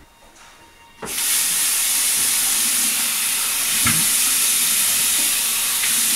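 Bathroom sink faucet turned on about a second in, then water running steadily from the tap into the basin as it is splashed onto a face.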